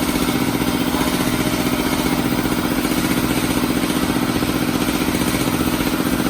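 A motor running steadily at a constant speed with a fast, even pulse.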